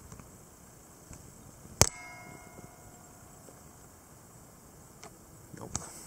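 A single sharp metallic clang a little under two seconds in, ringing on for about a second at several pitches at once, like a metal object being struck. A few faint handling clicks follow near the end.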